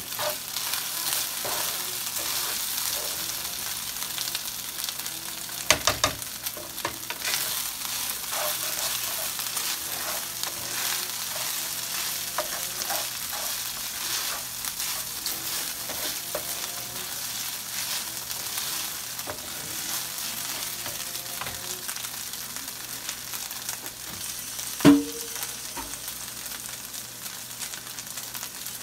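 Rice frying in oil in a skillet, a steady sizzle, stirred with a spoon that scrapes and clicks against the pan. A single loud knock on the pan near the end.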